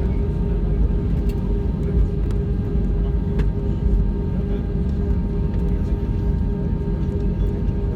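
Airbus A320-200 rumbling steadily as it moves on the ground, a constant low roar with a steady hum and no rise in engine power.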